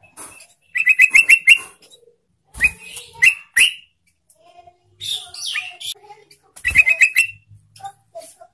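Caged yellow-vented bulbul (trucukan) singing loudly: bubbling phrases of quick, short notes, with a rapid run of about six notes early on and again near the end, and other chattering notes between.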